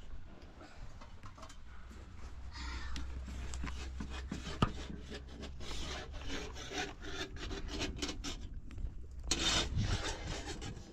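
Repeated rough scraping strokes, with one sharp knock about four and a half seconds in.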